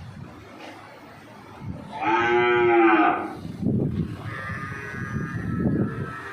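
A cow moos once, a loud call of about a second starting about two seconds in, its pitch rising slightly and falling away.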